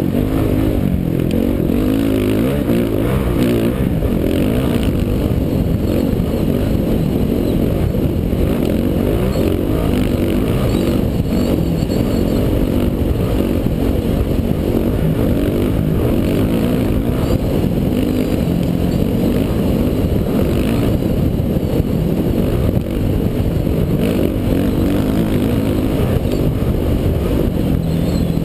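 Dirt bike engine running hard under throttle through sand, recorded on board, with heavy wind noise on the camera microphone; the level stays steady throughout.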